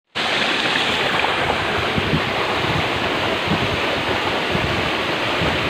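Waterfall pouring down a rock face into a rock pool: a steady rush of falling water.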